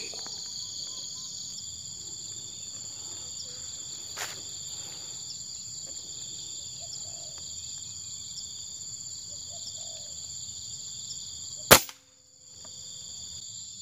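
Steady high-pitched insect chorus, with a single sharp air-rifle shot about twelve seconds in.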